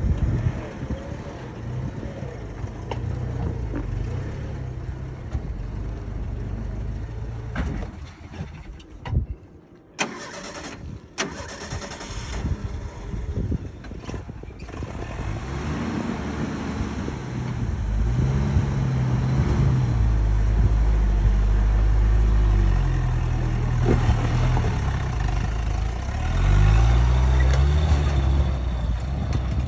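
Vintage Willys flat-fender Jeep's four-cylinder engine running and revving up and down as it climbs a rock obstacle, with a brief drop to near quiet about nine seconds in.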